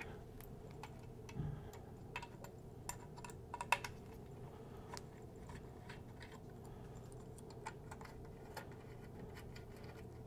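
Faint, scattered metallic clicks and ticks from a small Allen key turning the screws that hold the turntable's arm plate onto its spacers. A soft knock comes about a second and a half in, and a quick cluster of sharper clicks a little before four seconds.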